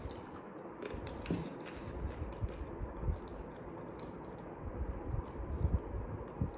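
Close-miked eating sounds: biting and chewing pieces of fried chicken pulled off the bone, with scattered small wet clicks and smacks from the mouth.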